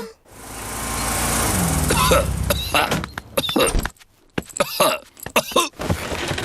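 Cartoon sound effects: a car pulling up, then a bear character coughing repeatedly in short fits, sick with a cough.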